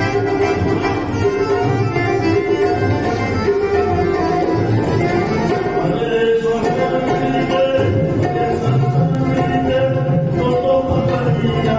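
A man singing an Awadhi folk song into a microphone, accompanied by a harmonium's sustained reedy chords.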